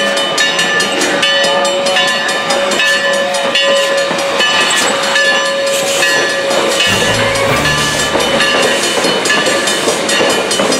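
Narrow-gauge steam train running: a steady whistle tone over steam hiss, with rapid, evenly spaced clicking throughout. A brief lower tone sounds about seven seconds in.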